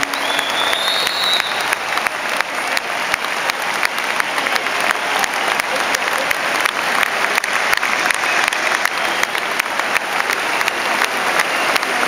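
Large stadium crowd applauding: a dense, steady clatter of clapping from thousands of spectators, with a short high whistle in the first second.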